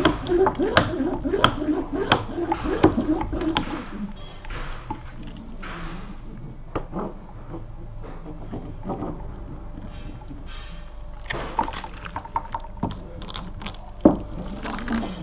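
A fibreglass laminating roller and brush working wet resin into glass mat on a timber surface, making a run of light clicks and knocks. The clicks are busiest in the first few seconds and again near the end, with one sharper knock about fourteen seconds in.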